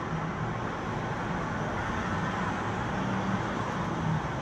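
Road traffic passing close by: engines and tyre noise from a van and a car going past, making a steady hum with a low engine tone that wavers.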